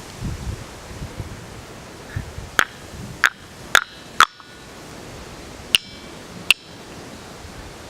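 A gabbro boulder struck six times with a small hand-held stone, the first strike about two and a half seconds in. Several of the hits give a brief high metallic ring, like a small bell.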